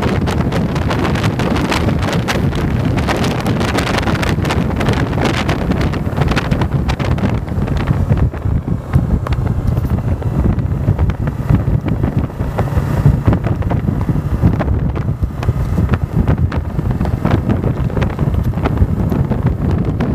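Wind buffeting the microphone of a camera mounted on a Yamaha motorcycle's handlebars, over the bike's engine running at a steady road speed. The wind comes in uneven gusts in the second half.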